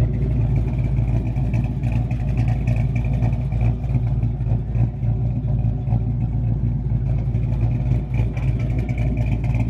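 Car engine idling: a steady low rumble that holds at an even level.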